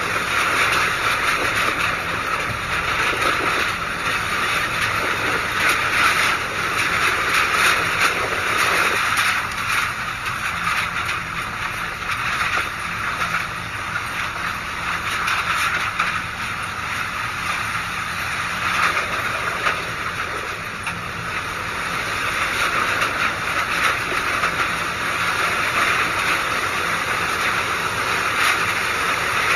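Typhoon wind and driving rain: a loud, steady rushing noise that swells and eases with the gusts.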